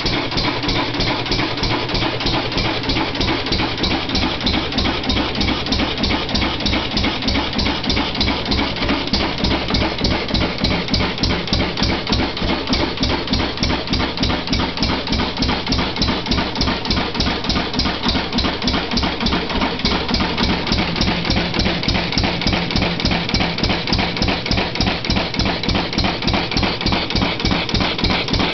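3 hp Samson hit-and-miss stationary gas engine running, a steady rapid rhythm of sharp beats.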